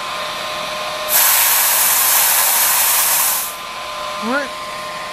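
Air Venturi RovAir portable high-pressure compressor running with a steady hum. About a second in, a loud hiss of high-pressure air lasts about two and a half seconds and then stops sharply: the fill line being bled at the end of a fill, before the hose is disconnected from the airgun.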